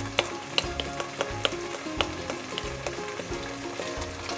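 Chicken pieces frying in a pan with a light sizzle, while a spatula clicks sharply against the pan a dozen or so times as it stirs. Background music plays underneath.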